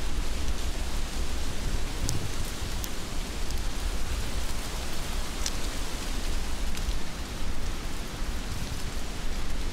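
Heavy rain falling steadily: a dense, even hiss with a low rumble beneath it, and a few sharp ticks of drops striking close by, about two, three and five and a half seconds in.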